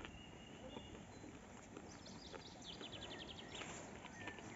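Faint outdoor rural ambience with distant birds calling, including a short, fast trill about three seconds in, and a few faint clicks.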